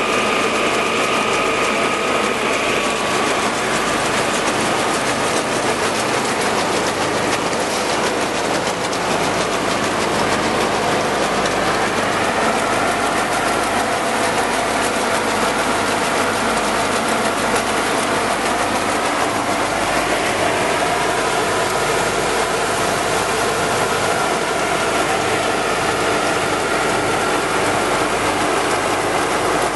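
Grain pouring from a trailer chute into a running grain auger's hopper: a steady, dense rush of falling grain with the auger's mechanical rattle and a few faint steady tones.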